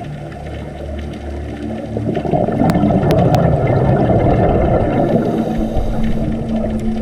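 Underwater sound: a low rumbling water noise with faint steady hums, growing louder about two seconds in.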